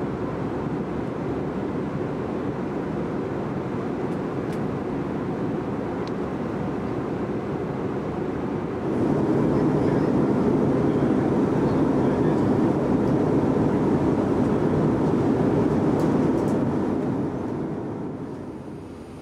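Steady cabin noise of an Airbus A321 airliner in flight: the rush of engines and airflow heard from a passenger seat. It gets louder about nine seconds in, then fades out near the end.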